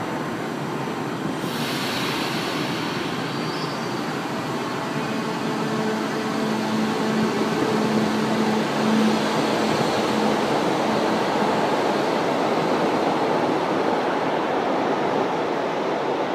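São Paulo Metro Line 1 train running out of an underground station past the platform, with a steady rumble of wheels on rails. A steady low electric hum from the train sounds for several seconds in the middle.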